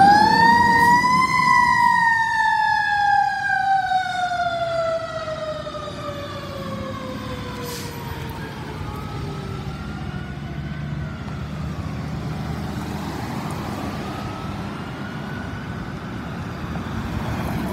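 Fire engine siren wailing: the pitch climbs to a peak about a second in, then falls slowly and fades. After that, fainter rising and falling wails continue as the truck moves away.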